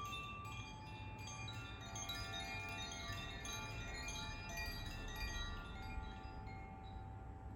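Tuned handheld wind chime (Koshi or Zaphir type) ringing as its clapper strikes the rods. Notes come one after another and ring on, overlapping into a shimmering cluster.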